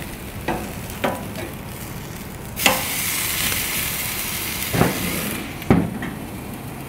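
Chicken breast sizzling on the hot grate of a gas grill as it is turned with metal tongs. The sizzle jumps up suddenly about two and a half seconds in and dies away after about three seconds, with a few metal clicks of the tongs and the grill lid around it.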